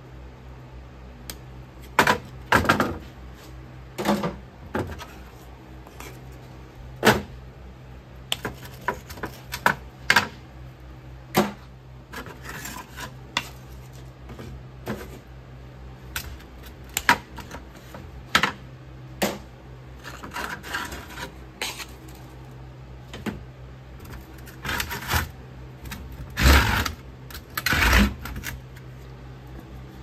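Irregular clicks and knocks as quick-release bar clamps are undone and small metal sand-casting flasks and wooden boards are lifted, flipped and set down on a plastic tray. The loudest two knocks come near the end.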